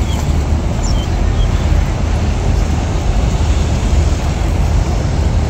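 Steady low outdoor rumble with an even hiss over it, typical of open-air waterfront ambience. A few short high chirps come in the first second and a half.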